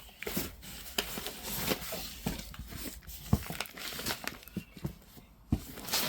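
Handling noise: rustling and crinkling with scattered sharp knocks, as boxed consumer firework cakes and their wrapping are moved about.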